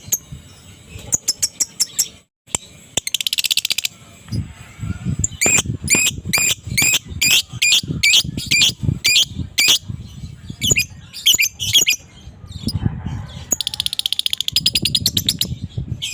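Lovebird giving its chattering 'ngekek' song. It runs from a fast shrill trill a few seconds in, through a string of loud sharp chirps about two a second in the middle, to another fast trill near the end.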